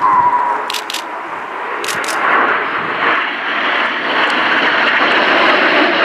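Jet engines of a formation of BAE Hawk T1 jets (Rolls-Royce Turbomeca Adour turbofans) flying past, a steady rushing jet noise that grows louder as they come over. A few pairs of sharp clicks in the first two seconds.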